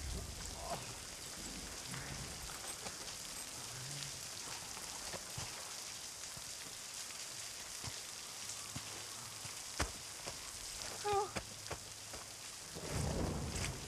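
Heavy rain pouring steadily onto pavement, a continuous hiss with scattered drop splashes, a brief vocal sound about eleven seconds in, and a low rumble of thunder rising near the end.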